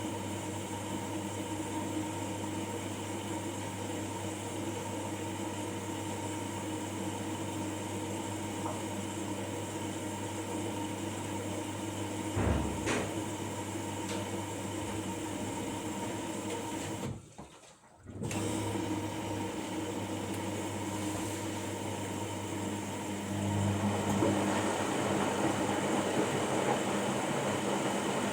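Washing machine running with a steady motor hum. There is a brief thump about twelve seconds in, a short drop-out near seventeen seconds, and the sound grows louder from about twenty-three seconds in.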